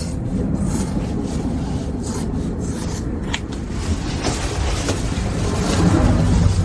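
Steady rubbing and scraping of neoprene wetsuit material being handled, with a few short ticks.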